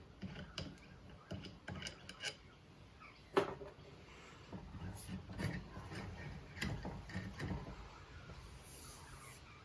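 Hand tools and metal fork parts being worked as the bolt is taken out of the end of a motorcycle fork tube: scattered small clicks, rubbing and scraping, with one sharper knock about three and a half seconds in.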